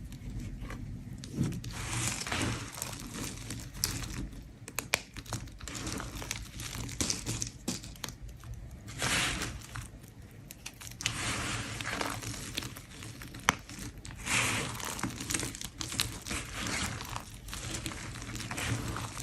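A blade scraping a bar of soap in repeated strokes of about a second each, with small clicks between the strokes.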